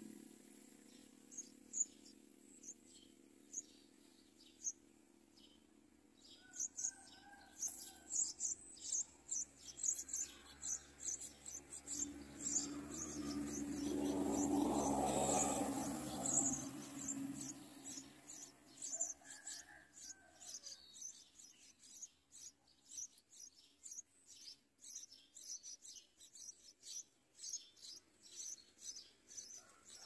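Yellow-vented bulbul nestlings begging: many rapid, high-pitched cheeps that begin a few seconds in and go on to the end, as a parent comes to the nest with food. A louder rustle of leaves and wings lasts a few seconds in the middle.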